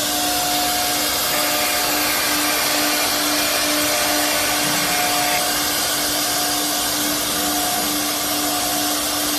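A CNC router machine running steadily: a continuous rushing noise with a steady whine held under it.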